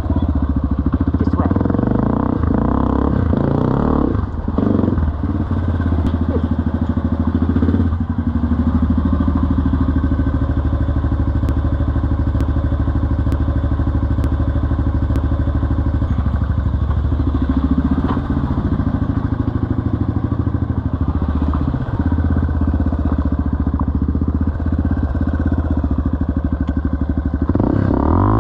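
Yamaha TT-R230 four-stroke single-cylinder dirt bike engine running under load on a rocky trail, heard from the rider's helmet. The revs ease off briefly around 4 and 8 seconds in, dip and climb again midway, and pick up near the end.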